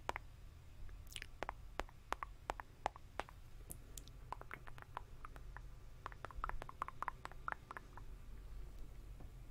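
Soft wet mouth clicks and smacks close to a microphone, irregular and coming in a quicker run in the second half, over a steady low hum.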